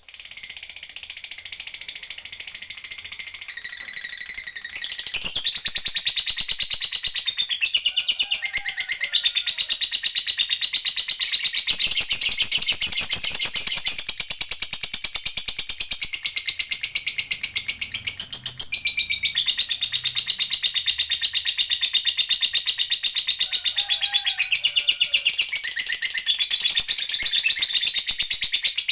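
Lovebird giving its long, unbroken, high-pitched rapid chattering trill ('ngekek panjang'), getting louder about five seconds in.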